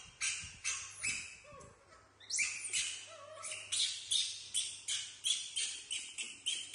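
Young macaques making short, high-pitched squeaking calls over and over, about three a second, with a brief pause a second and a half in.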